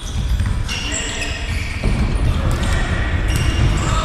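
Indoor football game sounds in a hall: the ball thumping on a hard floor, short high squeaks from shoes, and a heavy low rumble throughout.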